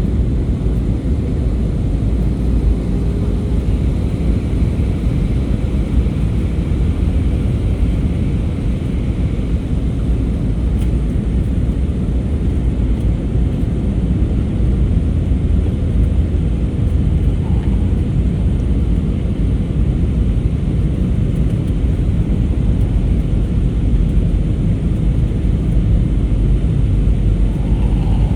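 Steady, loud roar of an airliner in flight, heard inside the cabin: engine and airflow noise, mostly deep and unchanging, with a few faint higher tones over it.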